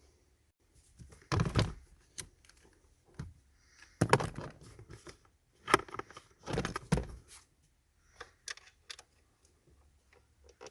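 Hand-handling noises from a car's air filter housing and filter: bursts of hard plastic knocks and clicks with rustling between them, loudest in four clusters over the first seven seconds, then a few lighter ticks.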